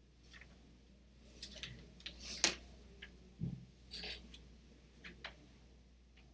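Scattered small clicks and brief rustles, the loudest a short rustle about two and a half seconds in, followed by a dull thump about a second later.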